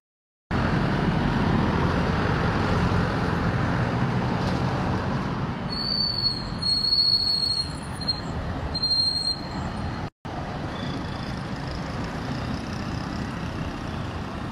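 City road traffic: cars, vans and motorcycles passing on a multi-lane street, a steady wash of engine and tyre noise. About six seconds in, a thin high squeal holds for roughly three seconds. The sound cuts out completely for a moment at the start and again about ten seconds in.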